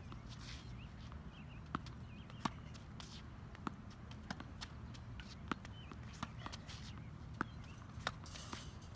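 Tennis balls bouncing on a hard court and being struck with a racket during forehand practice: sharp single pops at irregular gaps of about a second, several of them in pairs, over a steady low outdoor hum.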